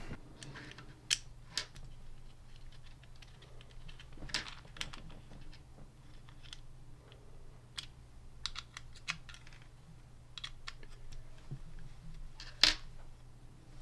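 Scattered small clicks and taps of an Allen key turning in the screws of a 3D printer's black plastic extruder housing and of the part being handled, with one sharper knock near the end.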